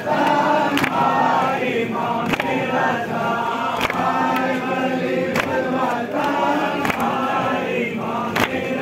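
Crowd of mourners chanting a nauha (Muharram lament) in unison, with a sharp slap of matam chest-beating landing together about every second and a half.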